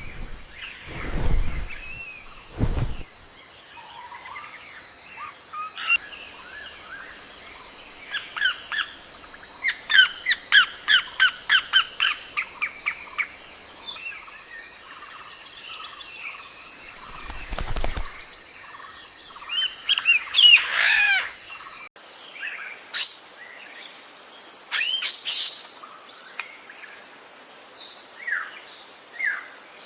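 Wild forest birds chirping and calling, including a quick run of about a dozen repeated notes about ten seconds in and a louder burst of calls around twenty seconds in, over a steady high whine. A few low thuds near the start and around seventeen seconds.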